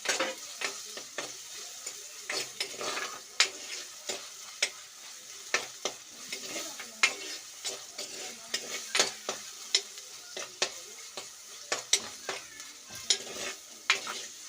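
Tomatoes and green chillies frying in coconut oil in a pan, sizzling while a spoon stirs them. The spoon knocks and scrapes against the pan in irregular clicks, about one or two a second.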